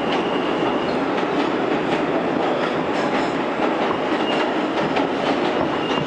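New York City Subway R160 car running at speed, heard from inside the car: a steady loud rumble of wheels on rail with irregular clicks over the track and a faint high squeal now and then.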